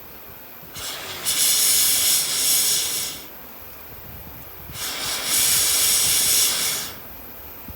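Two long bursts of loud hissing air at a charcoal campfire, each about two seconds, about a second and a half apart, over a quieter steady background.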